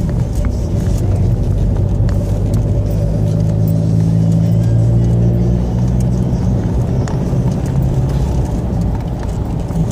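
Car's engine and tyres heard from inside the cabin while driving at a steady speed: a low, even drone.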